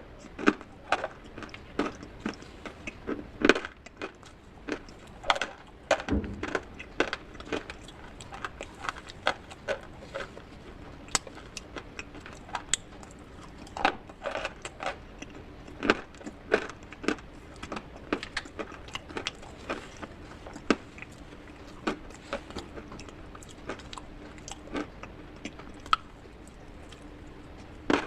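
Pieces of baked clay pot (matka) and slate being crunched with a spoon in a bowl: irregular sharp crunches and clinks, one or two a second.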